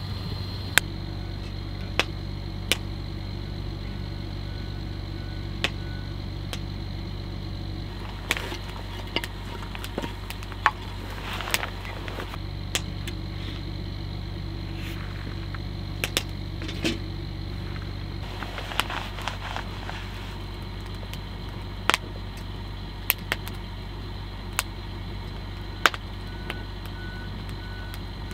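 Vehicle engine running with a steady low hum, with irregular sharp clicks and knocks scattered over it.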